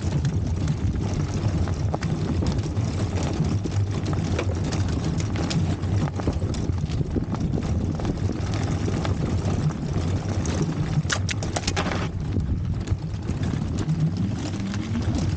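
E-bike and towed dog trailer rolling over a rough dirt track: a steady low rumble of tyres on dirt, with scattered clicks and a short run of sharp clicks about eleven seconds in.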